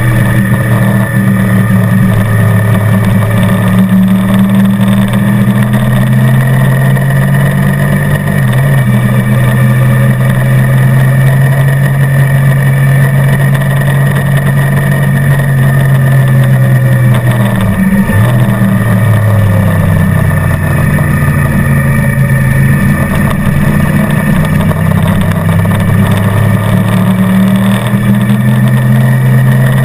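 Motorcycle engine running hard at speed, carrying rider and passenger, its note mostly steady. About two-thirds of the way through the pitch drops sharply, then climbs back up.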